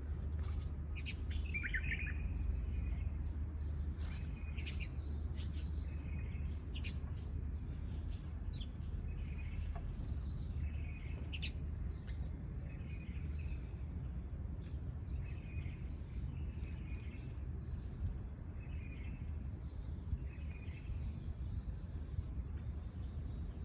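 Sparrows chirping: short, repeated chirps about every second, over a steady low rumble.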